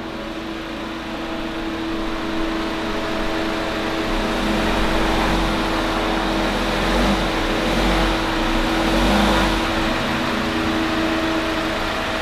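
Engine of a long-wheelbase Citroën Relay van running as the van is driven slowly into the workshop. Its low rumble rises about four seconds in and eases off near the end, over a steady background hum.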